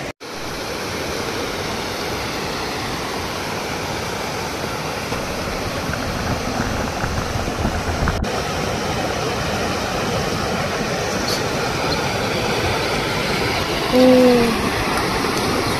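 Steady rush of flowing river water, with a brief voiced sound from a person about fourteen seconds in.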